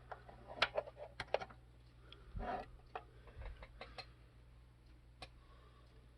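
Scattered light clicks and knocks of plastic equipment being handled, a Sony boombox and a USB media hub being set up, with a duller bump a little over two seconds in.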